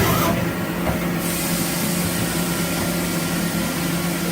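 CNC lathe running with a steady machine hum, joined about a second in by a louder, even hiss.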